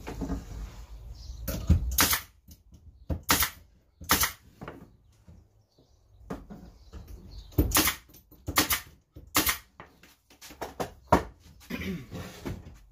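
Nail gun firing nails into softwood battens of a pine frame: about a dozen sharp shots at irregular spacing, some in quick pairs.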